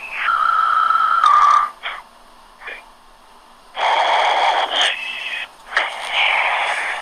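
Saved voicemail message playing back: harsh, wheezing breath-like sounds, some with a whistling tone, in bursts of one to two seconds. There is a quieter gap of about two seconds between the first burst and the next ones.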